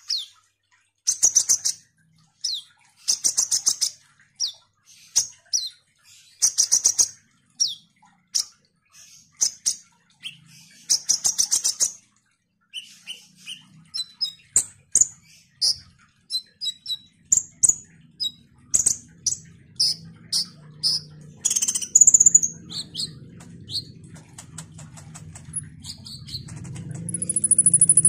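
Male kolibri ninja sunbird singing: bursts of rapid, high-pitched chattering trills with short pauses between, then quicker, more varied chirps. A low rumbling noise grows under the song near the end.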